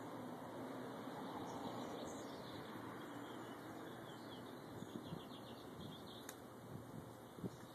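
Faint outdoor ambience: a steady hiss with scattered short high chirps, and a few soft bumps and a sharp click in the second half.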